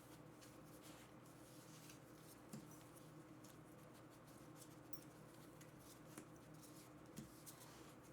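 Near silence: faint room tone with a few soft, light taps.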